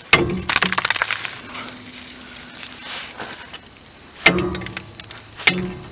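Rusted metal spacer of a sway bar link crunching and cracking as it is broken off the link bolt: a quick run of cracks in the first second, then two sharp metal knocks about a second apart near the end.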